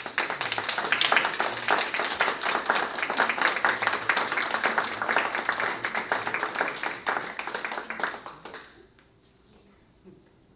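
Audience applauding, a dense patter of many hands clapping that dies away about eight and a half seconds in.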